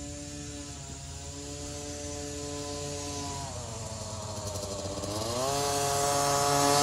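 Small dirt bike engine revving up and holding steady, easing off about three and a half seconds in, then revving up again as the bike comes closer and gets louder.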